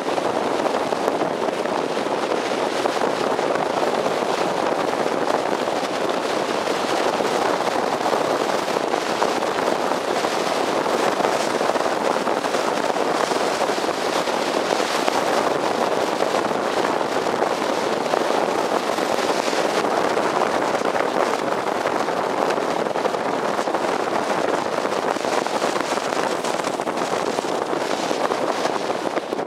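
Steady rushing wind noise on a roof-mounted camcorder's microphone as the car drives at road speed, with a crackly edge from the airflow buffeting the mic and tyre and road noise beneath it.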